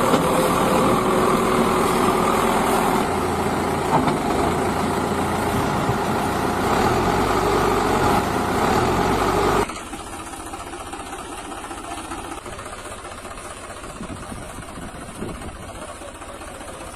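A vehicle engine running steadily at idle, which drops suddenly to a much quieter level about ten seconds in.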